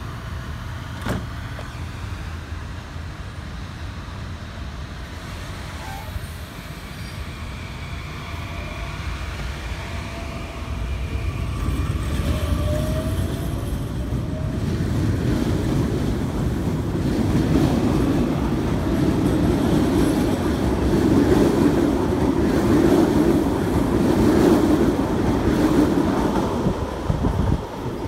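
CAF Series 7500 electric multiple unit pulling away from the platform. A short rising whine from its traction motors is followed by wheel and rolling noise that grows louder as the cars pass, then drops off sharply near the end as the train clears.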